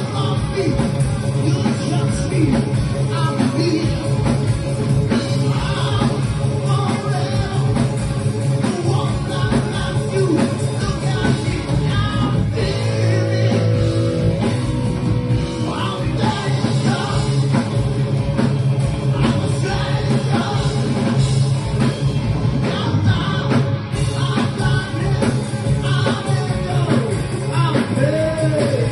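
Live rock band playing loud, with distorted electric guitar, bass guitar, drum kit and keyboard under a lead singer's vocals.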